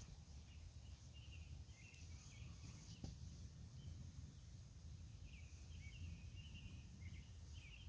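Faint ambience with a bird chirping in short, wavering calls every second or so, over a steady low rumble. There is a single click about three seconds in.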